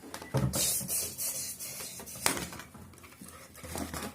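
Handling noises from plastic toys being moved and rubbed, with a low bump about half a second in and one sharp click a little over two seconds in.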